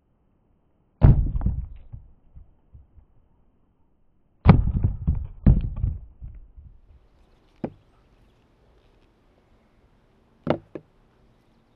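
Heavy blows of a leather-faced BASA No. 3 split-head mallet smashing fruit on bricks: three hard impacts, about a second in and then two a second apart around the middle, each followed by a short spatter of pulp and debris landing. A lighter single knock follows, and near the end two quick light knocks of the mallet.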